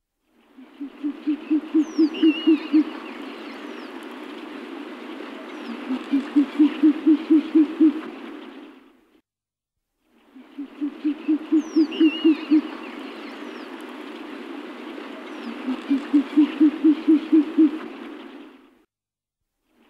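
An owl hooting in fast runs of low hoots, about five a second, two runs to each passage over a steady background hiss, with a few thin high chirps above. The same recorded passage plays twice, with a short silence between.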